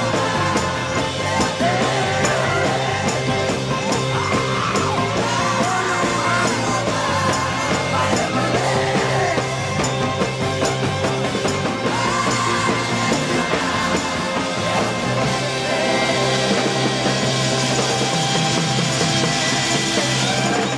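Rock song with a full band and a male lead singer; the cymbals grow louder in the last third.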